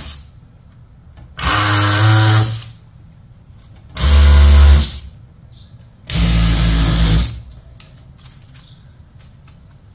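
DeWalt oscillating multi-tool cutting into pink foam board in three short bursts of about a second each, roughly a second and a half apart. Each burst is a motor buzz with a hiss from the blade, and it goes quiet in between.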